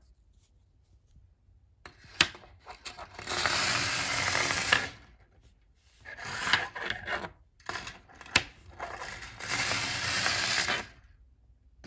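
A AAA battery with neodymium magnets on its ends driven through a bare copper wire coil, rattling and scraping along the turns as it travels. Two runs of about a second and a half each, each preceded by a sharp click.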